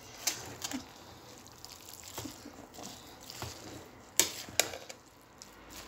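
Cooking spoon turning cooked jollof rice and sliced onions in a metal pot: soft squishing of the moist rice with scattered light scrapes and knocks against the pot, two sharper ones about four seconds in.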